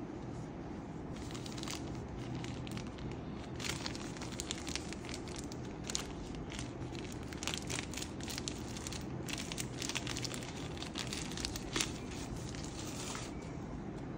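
Packaging crinkling and tearing in irregular short bursts as it is opened, over a steady low rumble.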